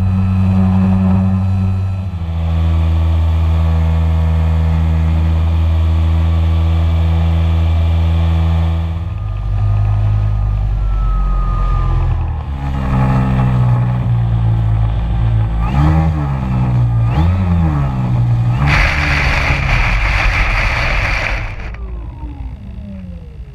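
Model DHC-2 Beaver seaplane's electric motor and propeller running at a steady pitch, then rising and falling with throttle changes. Near the end comes a loud rushing hiss of the float sliding through grass, then the propeller winds down in a falling whine.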